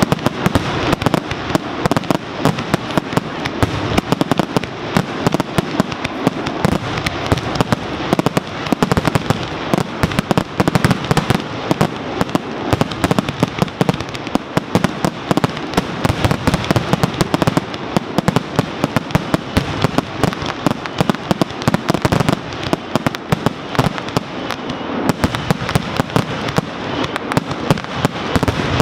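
Fireworks display in a dense, continuous barrage: aerial shells bursting and crackling in rapid succession, many sharp bangs a second without a pause.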